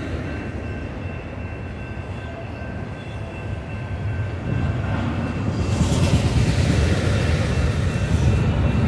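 Freight train of autorack cars rolling past, a low steady rumble of wheels on the rails that grows louder about halfway through.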